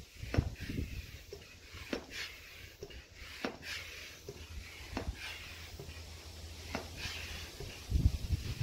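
Hand pump inflating an inflatable stand-up paddleboard: a hiss of air with each stroke and a click at each stroke, about five strokes, one every second and a half or so.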